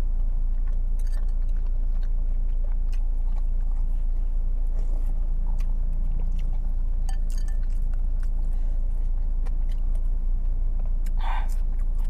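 Mouth sounds of eating bakso meatball soup, chewing and spooning it in, with many small clicks of a metal spoon and of chewing scattered through. A steady low hum runs underneath, and a short vocal sound comes near the end.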